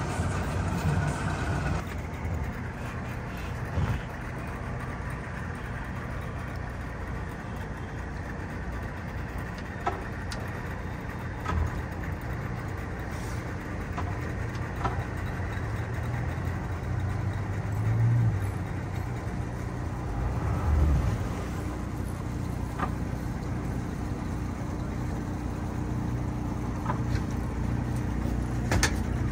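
Boat engine idling while the boat is steered slowly at low speed, with a couple of brief louder swells past the middle.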